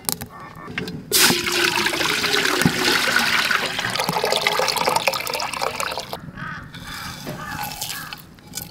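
Water pouring in a steady stream into a large aluminium cooking pot. It starts about a second in and stops about six seconds in.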